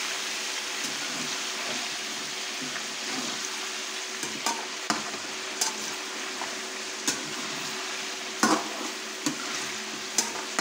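Chicken leg pieces frying in hot cooking oil with a steady sizzle, the pieces still raw and pale. From about four seconds in, a metal spatula stirring them clicks and knocks against the pan several times.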